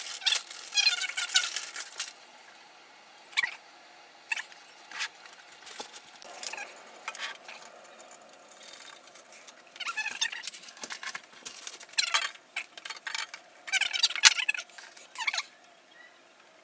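A small plastic bag of metal motherboard standoffs being rummaged: crinkling in several bursts, with sharp clicks of small parts between them.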